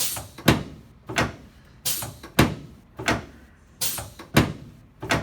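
A regular series of sharp thumps, about eight of them, one every two-thirds of a second or so, from repeated chiropractic adjusting thrusts on the pelvis and low back of a patient lying face down on a treatment table.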